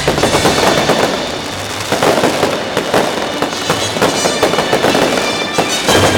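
Fireworks crackling and hissing densely and without a break, with music playing underneath.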